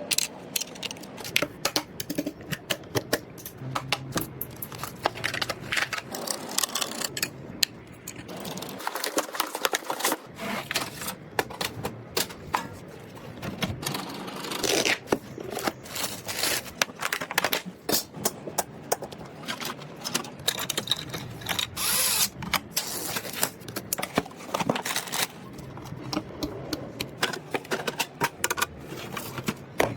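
Irregular clicks, taps and knocks of computer parts being handled and fitted during a PC build, with plastic and metal pieces set down and clicked into place.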